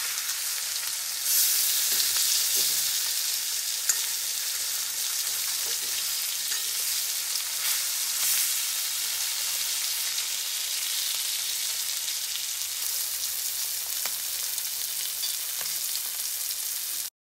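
Mullet fish shallow-frying in oil in a wok: a steady sizzling hiss, with a few sharp clicks of a steel slotted spoon against the pan as the fish are moved. The sizzle flares louder about a second in and again around eight seconds, then cuts off suddenly near the end.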